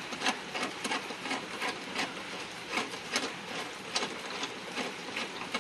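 Flanged nut being spun by hand onto a threaded steel IRS subframe stud, giving irregular light clicks and scraping.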